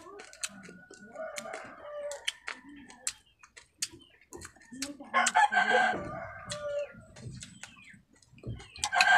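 Crisp clicks and crunches of fried baby crab shell being chewed, with a rooster crowing loudly in the background about five seconds in.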